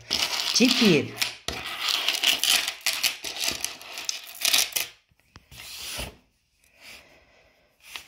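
Handling noise: a few seconds of rustling and rubbing as small jewellery items are rummaged for and picked up, with a short sharp rustle about six seconds in. A brief spoken sound comes just before the rustling starts.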